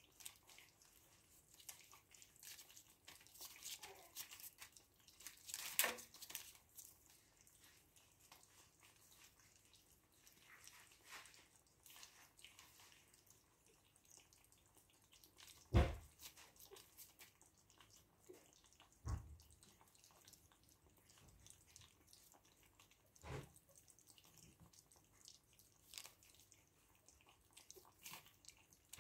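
3.5-week-old puppies lapping and chewing soft food from a shared bowl: faint wet smacking and clicking, broken by a few sharp knocks, the loudest about halfway through.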